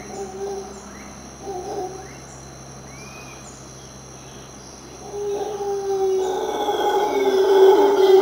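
Howler monkeys calling: two short roars about a second apart, then from about five seconds in a long, wavering roar that builds louder. A steady high insect drone runs underneath.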